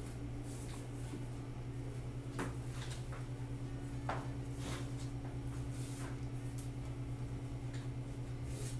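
A steady low hum that pulses evenly, with a few soft knocks and swishes scattered through it, the clearest about two and a half and four seconds in.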